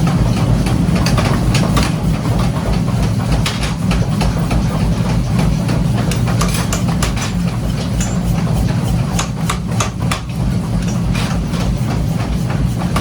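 Workshop machinery running with a steady low hum, overlaid by frequent irregular knocks and clanks of metal being worked in a forge shop.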